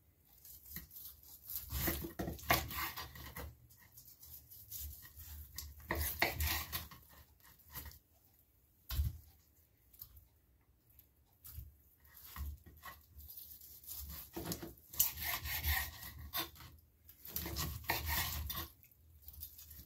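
A kitchen knife cutting between the bones of a rack of cooked pork ribs, scraping and knocking on a wooden cutting board. It comes in irregular bouts of a second or two with short pauses between, and there is one sharp knock about nine seconds in.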